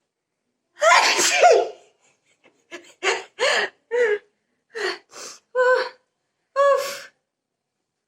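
A woman sneezing, set off by tickling her nose with a rolled paper: one long, loud sneeze about a second in, then a run of about seven shorter sneezes with sharp intakes of breath.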